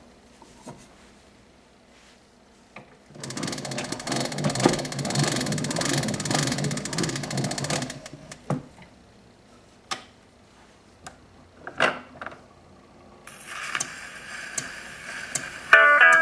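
Wind-up acoustic gramophone being readied: a dense, rapid ratcheting whir for about five seconds as the spring motor is cranked, then a few sharp clicks from the brake and tone arm. About three seconds before the end the needle sets down on the 78 rpm shellac disc and its surface hiss starts, and the record's steel-guitar country music begins right at the end.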